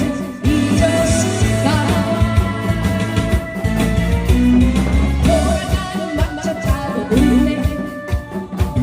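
Korean trot music: a singer over amplified band accompaniment with a strong bass.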